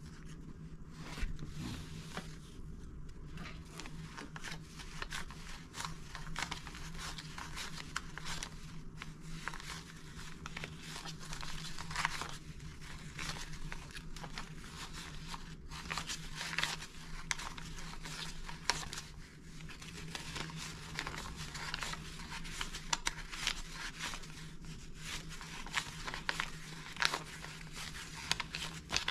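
US dollar bills being counted by hand: a continuous run of quick, irregular paper flicks and rustles as the bills are thumbed off a wad one after another, over a low steady hum.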